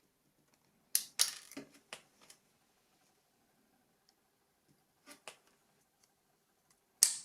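A few short, sharp plastic clicks and scrapes from handling the disassembled phone's small parts, in clusters about a second in, around five seconds in, and a loudest click near the end.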